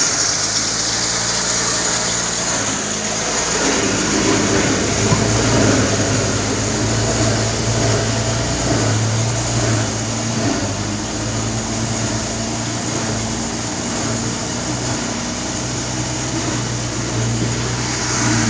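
A motor vehicle engine running steadily at a low, even hum, without revving.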